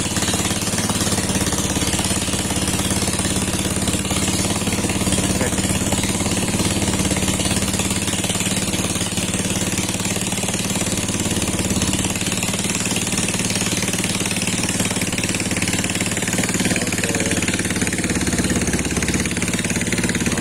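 Small petrol engine of a wooden boat running steadily under way, a fast, even pulsing hum.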